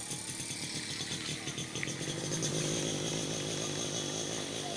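A small motor running with a steady buzzing rattle, a little louder about halfway through.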